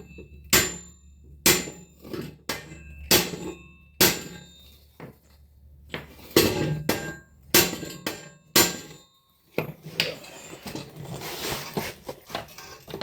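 Hammer striking steel, about a dozen ringing blows roughly a second apart with short pauses, followed by a few seconds of rougher, rattling metal noise.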